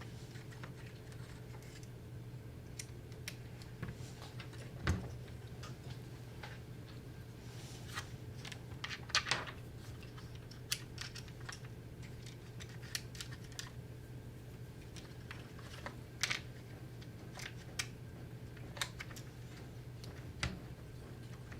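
Irregular small clicks and taps of wires and plastic parts being handled and pressed into place in a nail gun's plastic housing, a few of them sharper, over a steady low hum.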